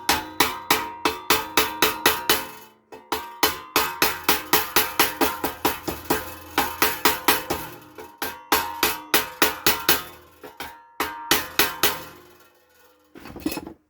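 Hammer blows on a steel repair panel clamped in a vise, forming a crease in the sheet metal. The ringing strikes come about four a second in runs of a few seconds, with short pauses between runs.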